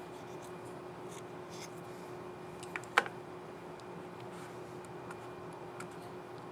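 Dell Latitude 7420 laptop key cap clicking once sharply about three seconds in, just after a softer click, with faint scattered ticks of plastic handling around it.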